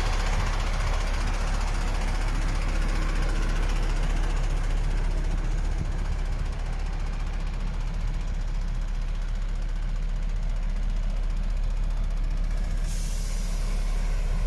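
MAN TGX 26.400's straight-six diesel engine idling steadily. Near the end a hiss of compressed air from the truck's air system starts.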